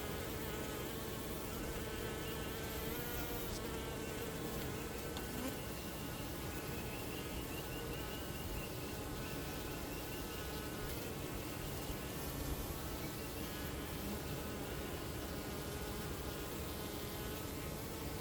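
Honeybees buzzing steadily, several wingbeat hums overlapping and wavering in pitch.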